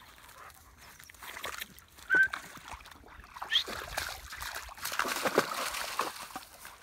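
A Rottweiler gives two short high whines, the first about two seconds in, then splashes noisily as it runs through shallow water near the end.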